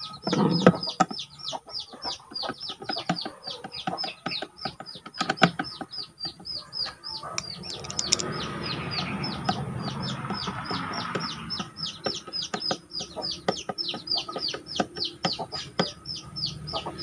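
Chickens peeping: a rapid, even run of short, high chirps that fall in pitch, about five a second, with a softer rustle about halfway through.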